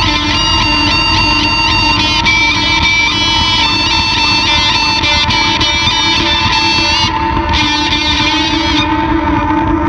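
SG electric guitar through a Big Muff fuzz and MXR Analog Delay with a little reverb: a sustained fuzzed drone under high notes that repeat quickly in trailing delay echoes. Near the end the high notes stop and the drone rings on.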